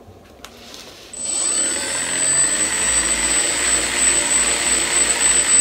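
Model aircraft's electric motor and propeller starting up about a second in and running on the bench, with a steady high whine over a rush of air that grows louder as the propeller and the Magnus rotor cylinders spin up.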